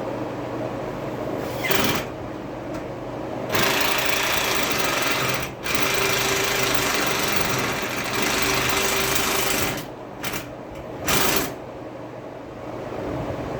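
Power screwdriver driving screws into braces in several bursts: a short one, two long runs of about two and four seconds, then two quick short pulls near the end, over a steady background hum.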